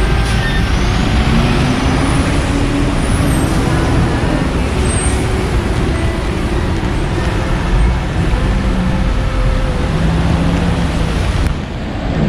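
Street traffic noise from passing motor vehicles, a steady loud rumble.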